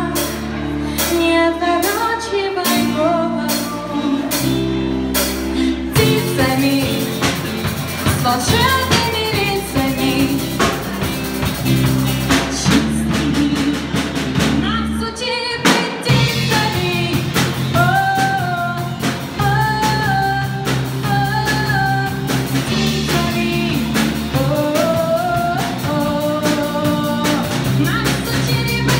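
A song: a singing voice over guitar and drums. The accompaniment fills out about six seconds in.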